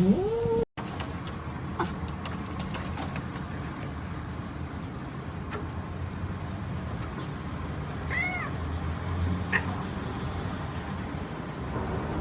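A cat meows once with a rising pitch, cut off abruptly under a second in. After that there is steady low background noise, with two short, faint high calls about eight and nine and a half seconds in.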